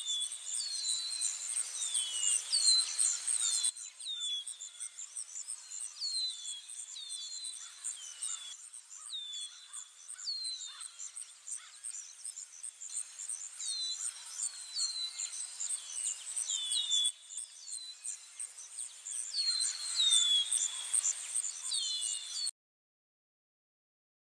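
Nature ambience of birds and insects: a steady, fast-pulsing high insect trill with many short bird chirps that sweep down in pitch. The background changes abruptly a few times, like cuts between pieces of a recording, and drops to silence about 22 seconds in.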